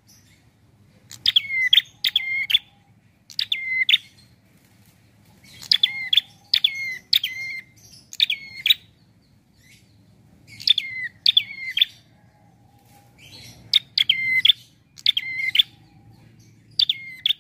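Caged prenjak calling: sharp notes that drop in pitch, given in quick groups of two or three with short pauses between groups.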